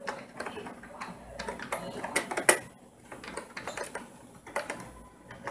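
Computer keyboard typing: irregular key clicks, busiest in the first three seconds with one louder strike about two and a half seconds in, then only a few scattered clicks.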